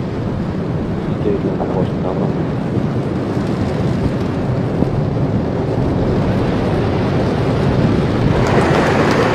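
Falcon 9 rocket's nine Merlin engines roaring during the climb just after liftoff: a steady deep rumble that slowly grows louder, harshest near the end.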